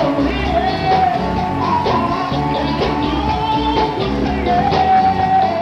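Live band playing: a male lead singer sings a gliding melody into a microphone over electric bass and a steady beat.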